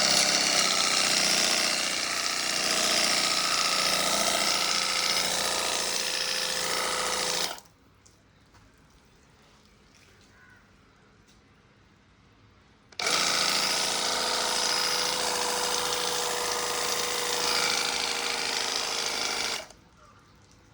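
Portable car pressure washer running with its foam bottle attached, spraying shampoo foam: a steady pump-motor hum under a hissing spray. It runs twice, about seven seconds each time, starting and stopping abruptly, with a quiet gap of about five seconds between.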